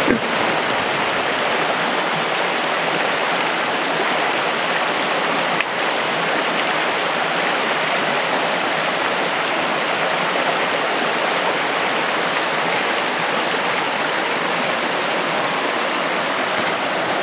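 Shallow rocky mountain creek rushing over stones: a steady, even water noise.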